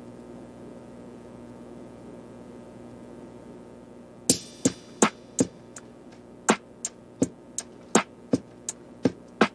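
Background music: a low steady hum, then about four seconds in a sparse beat of sharp, clicky percussion hits starts, about two to three a second.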